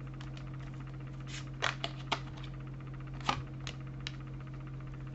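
Tarot cards being handled and laid out on a table: a handful of light, sharp clicks and taps, irregularly spaced, over a steady low electrical hum.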